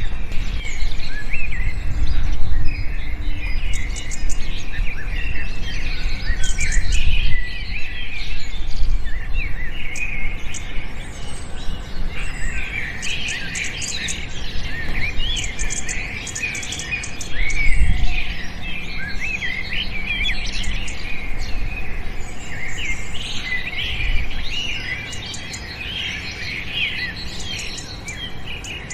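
Many small songbirds chirping and twittering at once in a dense, continuous chorus of short, quick notes. A low rumble runs underneath, mostly in the first third, and a dull thump comes about two-thirds of the way through.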